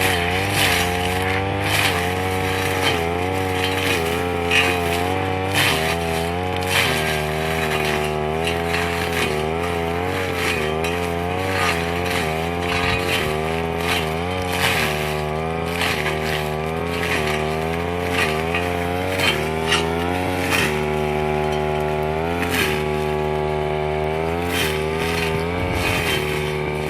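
Brush cutter engine running under load, its pitch dipping and recovering every second or two as the blade bites into grass and weeds, with brief swishes of the cutting.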